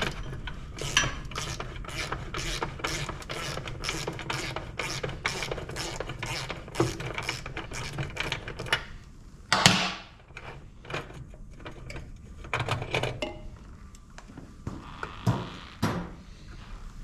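Socket ratchet clicking in a steady run of quick strokes, about three clicks a second, as a fender bolt is backed out. A single louder clunk about ten seconds in, then a few scattered clicks and knocks of the tools and hardware.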